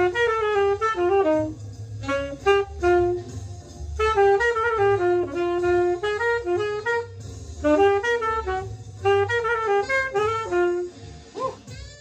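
Solo tenor saxophone playing fast bebop phrases of short, quickly changing notes, with brief breaths between phrases; the last note fades just before the end.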